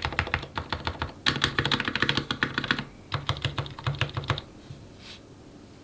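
Mechanical keyboard with lubed Gateron Ink switches on a brass plate and GMK keycaps, typed on quickly in three runs of keystrokes. The typing stops about three-quarters of the way through.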